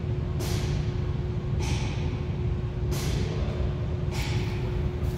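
Bulk oil pump running, pushing 10W-30 motor oil through a dispensing meter into the engine: a steady low hum with a short hiss that repeats about every second and a quarter.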